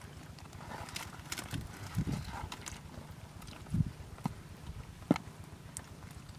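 A bare hand squelching and slapping in thick wet mud, groping for fish: scattered wet smacks and clicks, with louder thumps about two, four and five seconds in.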